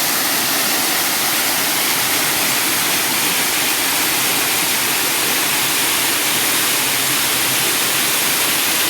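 Rushing river water: a loud, steady hiss of moving water that does not change.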